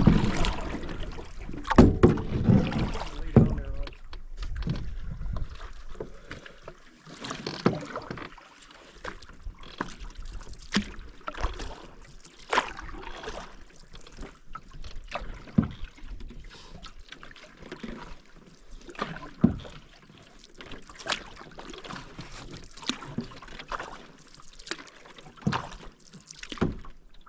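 Canoe paddle strokes: the blade dips and pulls through the water about every one to two seconds, with short splashes and knocks. A low rumble sits under the first few seconds.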